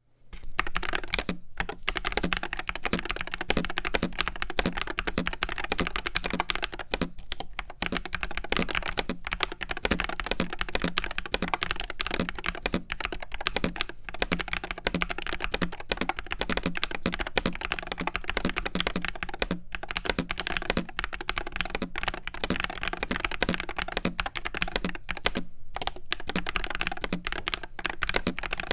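Continuous fast typing on an Akko TAC75 HE Hall-effect keyboard with Akko Glare magnetic switches, OEM-profile PBT keycaps, an aluminium plate and a plastic tray-mount case: a dense run of key clacks with a few brief pauses.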